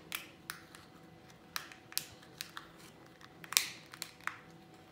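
Small plastic toy pieces handled in a child's fingers: a scattering of light, irregular clicks and taps, the sharpest about three and a half seconds in.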